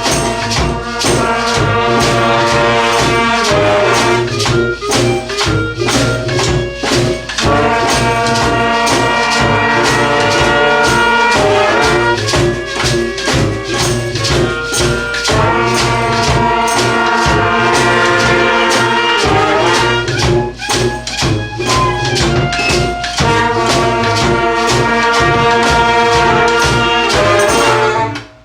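Brass and saxophone band with drums playing a rock groove: held chords punched with sforzando accents, and stop-start passages. The whole band cuts off together at the end.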